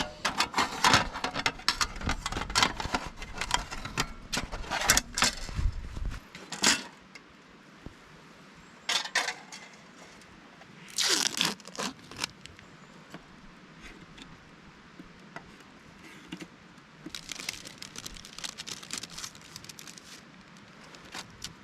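Crinkling, tearing and crackling of things being handled, dense for about the first six seconds, then a few scattered crackles and rustles.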